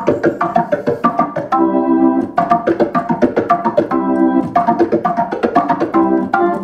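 Hammond organ playing a funk rhythm: quick, clipped chord stabs in a steady sixteenth-note pattern with ghost notes between them, broken by a few briefly held chords.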